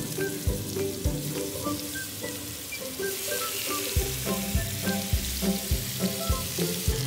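Marinated chicken pieces sizzling in hot coconut oil in a frying pan as more pieces are laid in one after another, the hiss growing heavier about halfway through. Background music with a steady beat plays over it.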